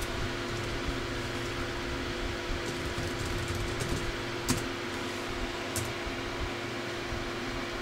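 A steady machine hum with background hiss, broken by two short clicks about a second and a half apart a little past the middle.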